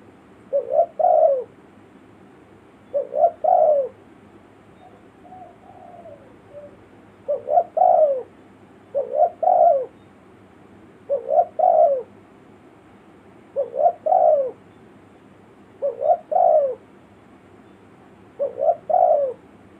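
Spotted dove (tekukur) cooing its repeated call: a short phrase of about three coos roughly every two seconds, eight phrases in all, with one softer, quieter call partway through. It is a lure (pikat) call, used to draw wild doves in.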